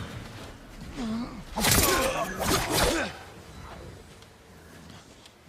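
Katana sword fight: steel blades clashing with grunting and gasping voices. The loudest clash comes about a second and a half in, and the fight goes quieter after about three seconds.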